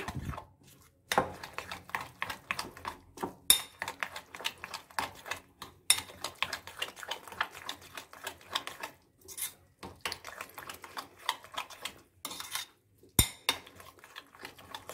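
A spoon stirring besan batter thick with chopped onion, tomato and chilli in a glass bowl: irregular clinks and scrapes of the spoon against the glass, with a few brief pauses.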